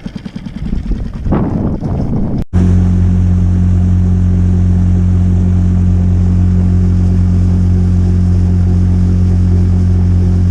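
An uneven rumble, then an abrupt break about two and a half seconds in, after which a loud, steady low engine drone holds one even pitch.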